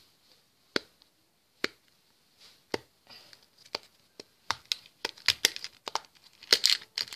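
Triple dimple push-pop fidget toy being pressed, its bubbles popping through with sharp clicks. The clicks come singly about a second apart at first, then in a quicker run over the last few seconds.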